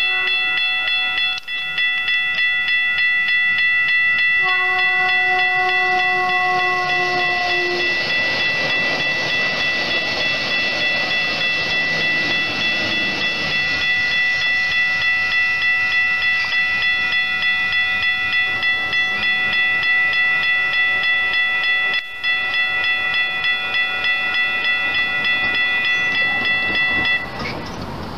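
Railroad grade-crossing bell ringing steadily. A passenger train sounds one horn blast of about three seconds, its pitch falling slightly, then passes with a steady rush of wheel and rail noise. The bell stops about a second before the end.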